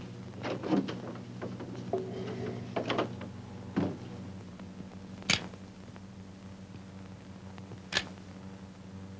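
Door and latch sounds: scattered soft knocks and clicks, then two sharp clicks about five and eight seconds in, over a low steady hum.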